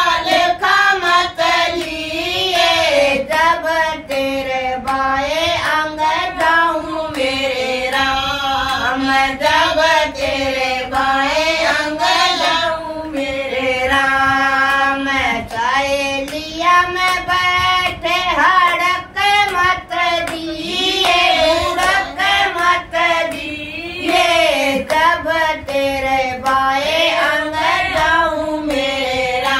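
A group of women singing a folk devotional bhajan to Tulsi Mata together, without instruments, with hand claps keeping time.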